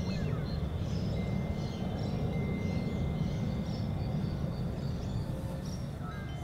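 Outdoor ambience: a steady low rumble with faint high bird chirps, and a thin steady high tone coming in about a second in.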